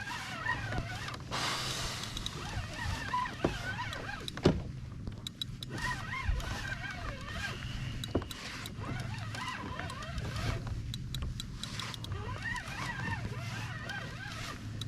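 Fishing reel being cranked steadily, winding in line against a lightly fighting fish, with a whirring gear sound that wavers in pitch with each turn.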